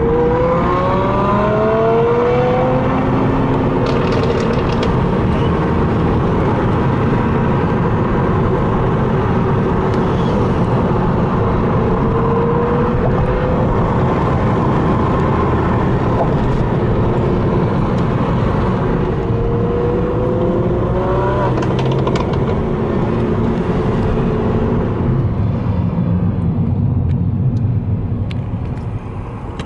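Lamborghini Huracán LP 610-4's 5.2-litre V10 running as the car is driven, rising in pitch several times as it accelerates, with a few sharp exhaust pops and crackles. It drops quieter near the end.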